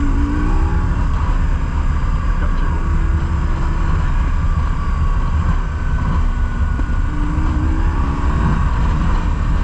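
BMW R1150GS Adventure's flat-twin boxer engine running at a steady road pace, its pitch rising and falling a little, under a constant heavy wind rumble on the microphone.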